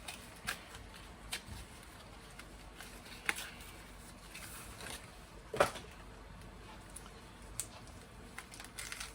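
Scattered light clicks and taps of things being handled on a kitchen counter, with one louder knock about five and a half seconds in.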